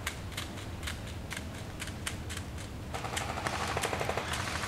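A run of sharp, uneven clicks, about two or three a second, joined in the last second and a half by a dense rustling crackle.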